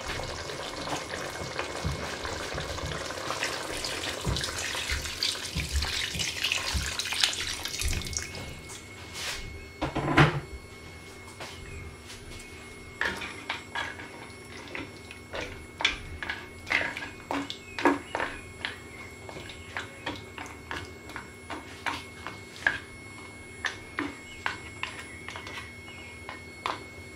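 Boiled water poured steadily from a kettle into a pot of simmering oxtail for about eight seconds, then a single loud knock about ten seconds in. After that a plastic serving spoon stirs the topped-up pot with light, scattered taps against the side.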